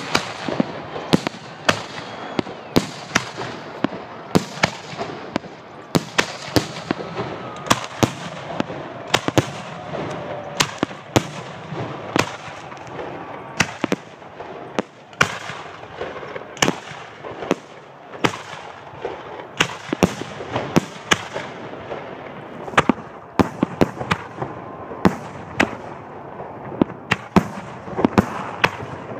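A fireworks display of aerial shells bursting overhead: sharp bangs in quick, irregular succession, about two a second.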